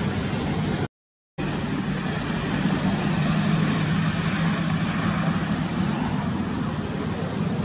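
Steady low background noise with no distinct events, cut by a half-second dropout to silence about a second in.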